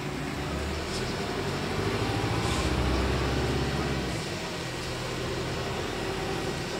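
Interior of a Volvo 7900A hybrid articulated bus under way, with a steady cabin rumble and a faint steady whine. A low drivetrain drone builds to its loudest about two to three seconds in, then drops away suddenly about four seconds in.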